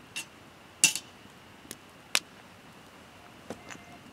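A handful of sharp, separate clicks and knocks, the loudest a little under a second in, over a faint steady high-pitched tone.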